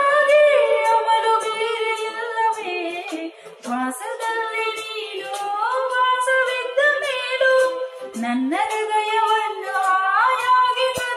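A woman singing into a handheld karaoke microphone: long held notes with sliding, ornamented turns in pitch.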